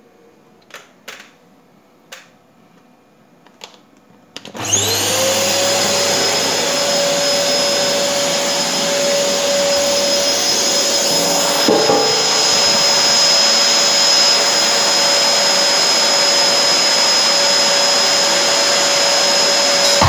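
Canister vacuum cleaner switched on about four and a half seconds in: its motor spins up with a rising whine and then runs steadily. A few small handling clicks come before it starts.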